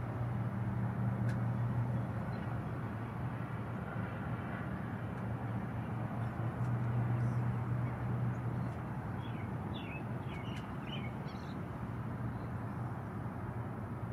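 A steady low droning hum over a wash of outdoor noise. About nine seconds in comes a quick run of short, high chirping calls from an osprey at the nest.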